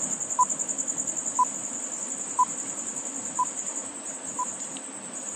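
Countdown timer beeping five times, one short tone each second, over a steady high chirring of crickets.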